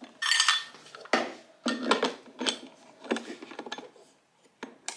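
Metal portafilter of a home espresso machine clinking, knocking and scraping against the machine's brew head as it is twisted and handled: about half a dozen separate clicks and rattles, sparser toward the end with one last click.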